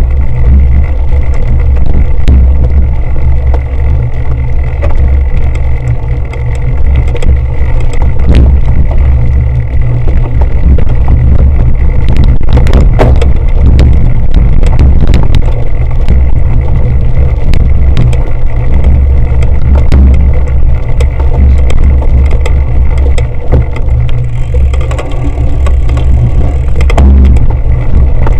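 Heavy low rumble of wind buffeting and vibration on an action camera carried by a cyclocross rider riding over bumpy grass, with frequent short knocks and rattles from the bumps.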